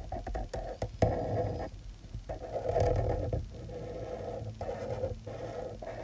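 Artline felt-tip pen scratching across paper in a run of drawing strokes, each up to about a second long with short breaks between.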